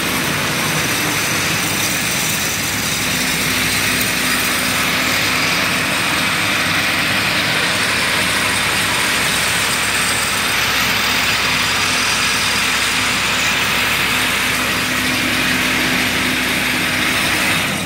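An engine running steadily with a constant hum and broad hiss, cutting off at the end.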